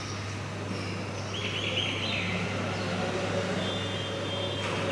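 Steady low hum under even background noise, with a short higher-pitched sound about a second and a half in.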